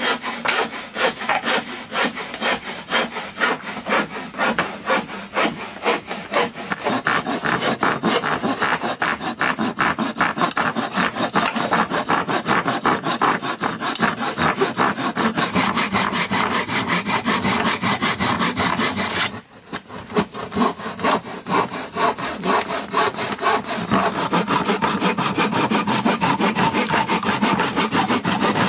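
Hand saw cutting through wood in quick, even back-and-forth strokes, with a brief pause about two-thirds of the way through.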